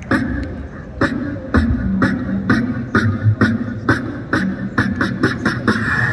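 Live band's amplified percussion groove: steady beat hits about four a second over a low bass line.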